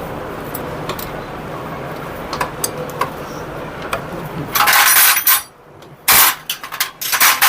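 Metal hand tools clinking and rattling against each other and the engine, in several loud clatters in the second half, during bolt tightening on a motorcycle engine's timing chain side. Before that there is a steady background hum with a few faint metal clicks.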